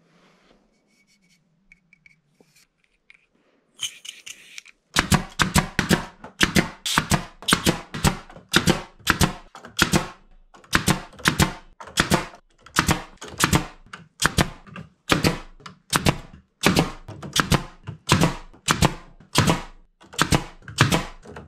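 A hand tool working wooden boards in steady repeated strokes, about two a second, starting about five seconds in after a brief rustle.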